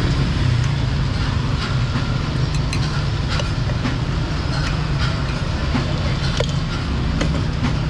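Steady low rumble of street traffic, with scattered light clinks of a metal spoon and tin can against pots and pans.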